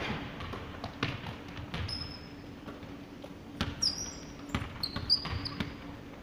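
Basketball bouncing on a hardwood gym floor: irregular dribbles and thuds, with several short, high sneaker squeaks on the court around the middle.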